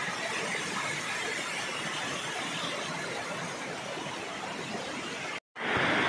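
Water rushing and splashing down a rocky cascade, a steady hiss. It cuts out for an instant near the end and comes back louder.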